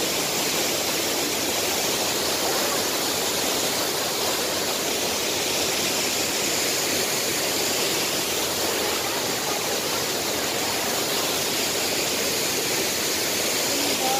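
Mantayupan Falls' cascades pouring into their plunge pool: a steady, even rush of falling water with no let-up.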